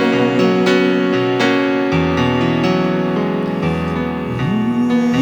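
Instrumental break in a slow romantic pop ballad: keyboard chords over a bass line, with the singer's held last note fading out in the first moment. A single note glides up just before the end.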